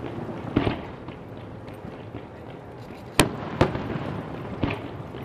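A fireworks display going off: four sharp bangs, the loudest about three seconds in and followed half a second later by another, over a steady low rumble with faint crackling between them.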